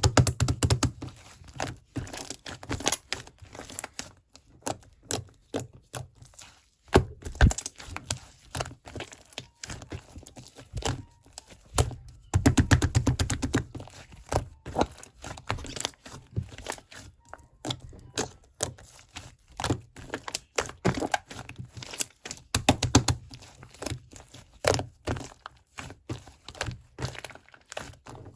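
Foam being pressed and worked: dense crackling clicks throughout, with heavier low thuds in several bursts.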